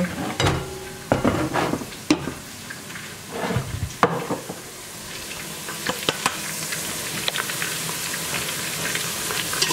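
A few knocks and clatter in the first seconds, then sliced onions sizzling in hot oil in a steel pot as a slotted spoon stirs them. The hiss builds from about five seconds in and stays steady.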